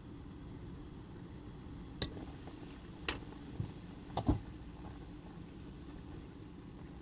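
A pot of stew boiling with a steady low rumble, with a few sharp clinks and knocks around the middle as the glass lid is lifted off and a ladle goes into the pot.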